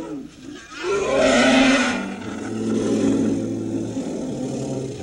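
An Asian elephant gives a loud, harsh, noisy trumpeting call about a second in, lasting about a second. Low, sustained brass notes of a film score come in beneath it around the two-second mark.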